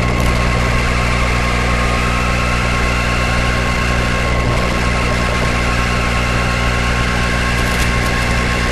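Steady, unchanging hum with a constant high whine, picked up by the onboard camera of a radio-controlled car as it drives.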